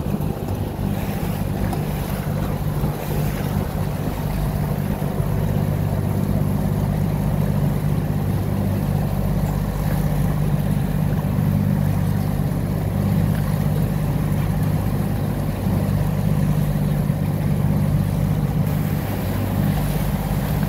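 A small fishing boat's engine running steadily under way, a low even drone that holds constant, with rushing water and wind noise over it.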